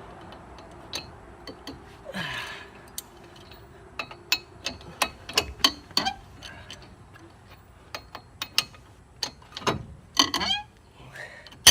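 Irregular metallic clicks and clinks of tools and wheel hardware being handled, with a couple of brief rattles about two seconds in and again near ten seconds.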